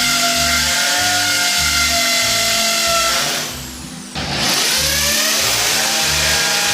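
Electric power tool running loudly with a motor whine, briefly released about three and a half seconds in so the motor winds down, then triggered again and spinning back up with a rising whine.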